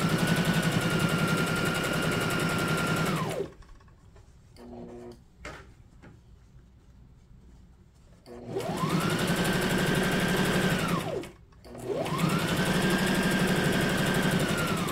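Brother SM2700 electric sewing machine stitching through fabric in three runs as the foot pedal is pressed. Each run starts with a rising motor whine, holds steady with rapid needle chatter, then winds down. A quiet pause of about five seconds after the first run holds only light handling sounds.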